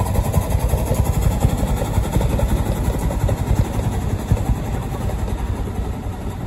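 Miniature steam train passing: the locomotive running and its open passenger cars rolling on the rails, a dense low rumble that eases slightly toward the end.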